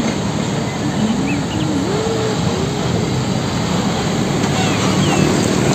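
Isuzu tanker truck driving past on a road, its engine and tyre noise making a steady, loud rushing traffic din.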